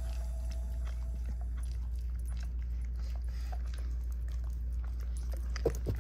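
Small dog chewing a treat: scattered faint wet mouth clicks, a couple of louder clicks near the end, over a steady low hum.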